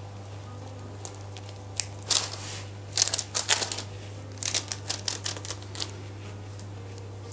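Hands shaping raw yeast dough on a baking tray lined with baking paper: scattered short rustles and soft taps as the fingers pinch the dough's edge and brush the paper, coming in small clusters from about a second in.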